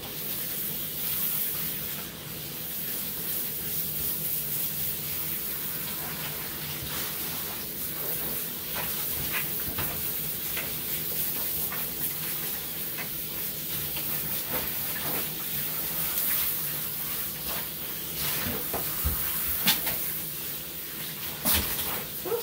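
Handheld shower sprayer running, a steady hiss of water spraying onto a wet dog's coat and into a bathtub. A few short sharp clicks or splashes come near the end.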